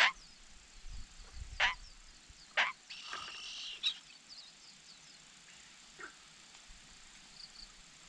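Red-billed blue magpie feeding its chick at the nest: a few sharp, very short sounds, and a harsh rasping buzz lasting about a second from just after three seconds in, typical of a nestling begging as it is fed. Faint chirps of other birds are in the background.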